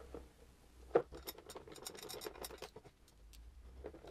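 Hand ratchet with a 6 mm socket clicking as it runs down plastic screws into a motocross bike's plastic subframe parts. One sharp click about a second in, then a quick run of light clicks lasting about two seconds.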